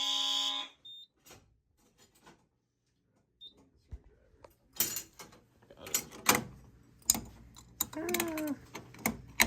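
Fire alarm horns sounding a steady tone cut off less than a second in. After a few quiet seconds comes a series of sharp clicks and knocks of handling, the loudest about six seconds in.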